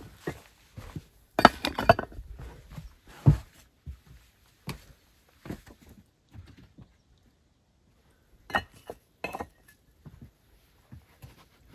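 Red clay bricks knocking and clinking against one another as they are set down onto a stack. A handful of separate sharp knocks with quiet gaps between; the loudest comes about three seconds in, and another pair sounds near the end.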